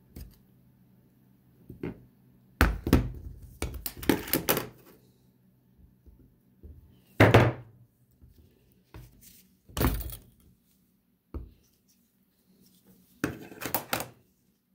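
Small metal parts and hand tools clinking and clunking on a steel workbench as an air brake relay valve is taken apart. There are about half a dozen separate bouts of clatter with quiet gaps between them, and the loudest comes about halfway through.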